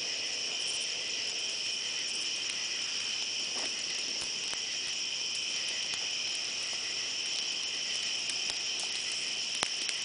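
Steady chorus of crickets, a continuous high chirring at two pitches, with a few faint crackles and pops from a burning wood fire and one sharper pop near the end.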